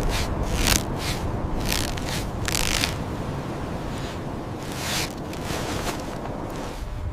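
Steady low rumble, like wind on the microphone, under a run of short scraping, rustling swishes, most of them in the first three seconds and one more about five seconds in.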